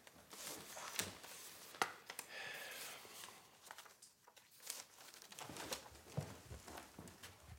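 Paper sheets rustling softly as they are leafed through, with a few light clicks and knocks of handling.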